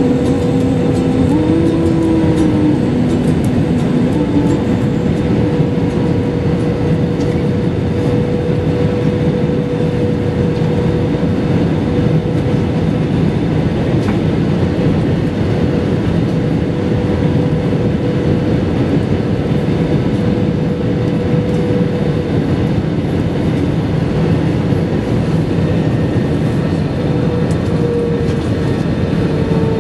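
Airbus A320 cabin noise on final approach, heard from a window seat over the wing: a steady rush of jet engines and airflow, with a steady engine tone running through it.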